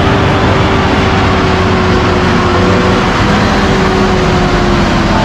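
MAN TGS timber truck's diesel engine running steadily as it pulls the empty log trailer through mud, the engine note drifting slowly down in pitch.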